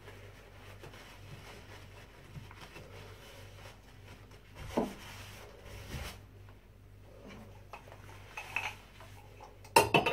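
Rubber-gloved hands wiping bathroom fixtures, soft rubbing with small knocks and a sharp click about five seconds in. Near the end comes a loud clatter of several hard knocks as the toothbrush cup is handled in its wall-mounted ring holder.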